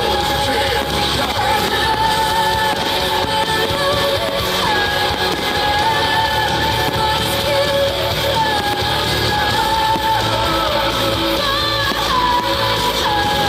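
Background music: a song with a singer's voice over instruments and a continuous bass.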